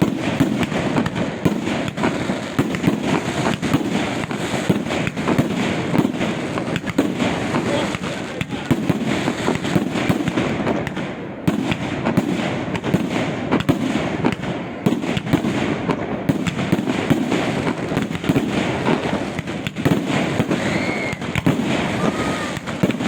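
Fireworks display with shells bursting overhead: dense, rapid cracks and crackling in close succession.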